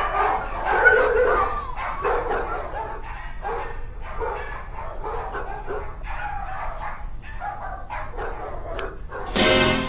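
A dog vocalizing in a run of short, varied calls whose pitch rises and falls, loudest in the first couple of seconds. Music starts near the end.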